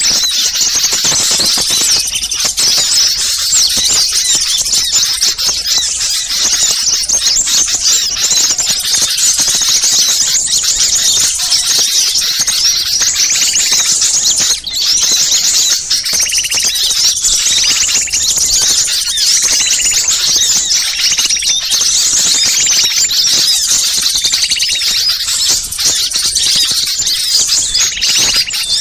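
Small birds calling together in a dense, continuous, high-pitched twittering and chattering, the agitated flock chorus used as a lure call for small birds. From about halfway through, a lower trill joins in, repeating every second or two.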